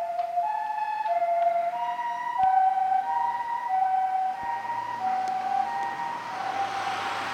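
Japanese ambulance siren in its quieter residential-area mode: the two-tone "pee-po" alternating between a high and a low note about every half second, stepping slightly higher in pitch about two seconds in. Near the end the vehicle's road and engine noise swells as it drives close by.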